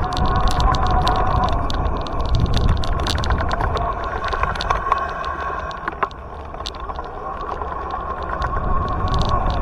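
Riding noise from a bicycle-mounted action camera rolling over brick paving: a low rumble of wind and road vibration with rapid, irregular rattling clicks from the bumps, dipping briefly about six seconds in.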